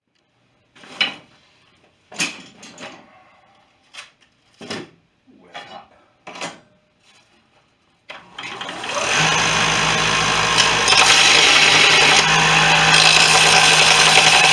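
A series of separate knocks and clatters from tools being handled. About eight seconds in, a power tool starts up, builds to full speed within about a second and runs steadily with a loud, even noise and a low hum.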